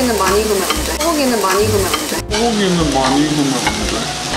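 Meat sizzling on a tabletop Korean barbecue grill grate, a steady crackling hiss as it is turned with tongs. A melody gliding up and down runs over it.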